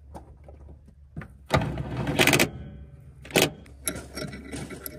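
Metal tools and parts clattering and scraping against each other for about a second, starting about a second and a half in, with a faint ringing after it and one sharp clank about three and a half seconds in.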